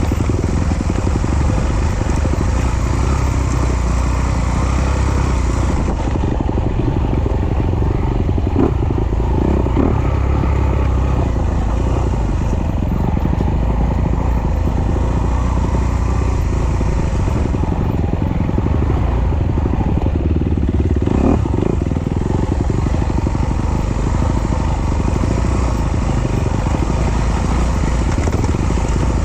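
Trail motorcycle engine running steadily while riding off-road, with a few short knocks about 9 and 21 seconds in.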